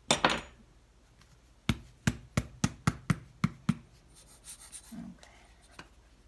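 A brief rustle, then a plastic squeeze bottle of clay slip being tapped sharply about eight times, roughly three knocks a second, to get thick, balky slip moving to the nozzle.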